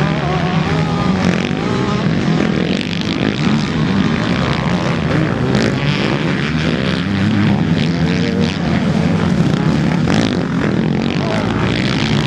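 Several motocross dirt bikes racing past, their engines revving up and down as the riders accelerate and back off through the corners.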